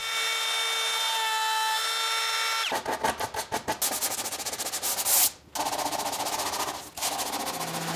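Power tools running in a woodworking shop. A steady whine for the first few seconds gives way to a rougher, rattling tool sound full of rapid clicks, which cuts out briefly twice.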